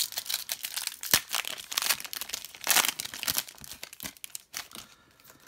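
Trading card pack wrapper crinkling and crackling as it is torn open and the cards are pulled out, with one sharp crackle about a second in; the crackling dies away near the end.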